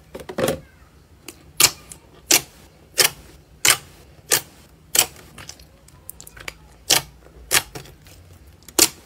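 Thick slime being pressed and kneaded by fingers, giving sharp popping clicks as trapped air pockets burst, about one every two-thirds of a second in a steady rhythm.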